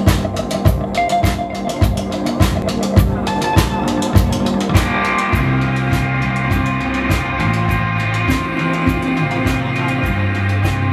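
Live rock band. A drum kit plays a busy beat, and about five seconds in, sustained electric guitar and keyboard chords and bass notes come in over it.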